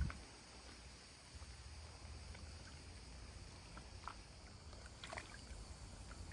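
Faint sloshing and lapping of water as a Kangal dog stands and drinks in a plastic washtub, with a short bump at the very start and a few small ticks later on.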